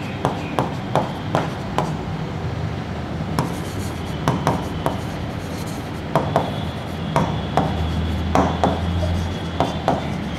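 Marker pen writing on a whiteboard: a run of short, irregular strokes and taps, over a steady low hum.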